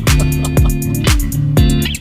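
Music with a steady beat, about two beats a second, over held instrumental notes.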